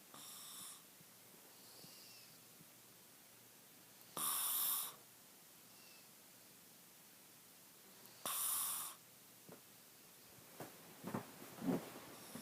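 A sleeping person snoring: three rasping snores about four seconds apart, the first softer than the other two. Near the end comes a run of short clicks and knocks.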